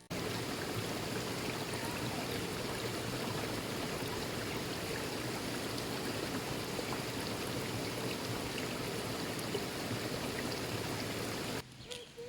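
Steady rushing water of a stream, which cuts in suddenly at the start and cuts off suddenly near the end.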